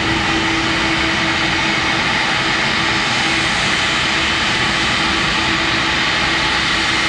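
Boeing 747 freighter's four turbofan engines running at taxi power: a steady, loud jet rumble and whine holding one constant pitch.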